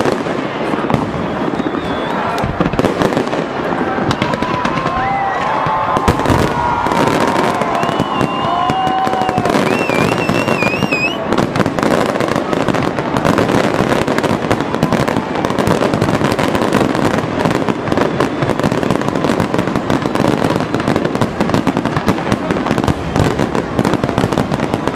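Many fireworks going off at once in a dense, continuous crackle of bangs and pops, with a few warbling whistles near the middle.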